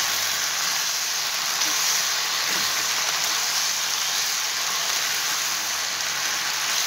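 Steady sizzle of chicken, vegetables and boiled shell pasta frying in a pan while they are stirred together with a wooden spatula.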